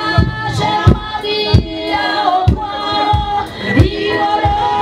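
A mixed choir of men's, women's and children's voices singing, holding long notes over a steady beat of low thumps.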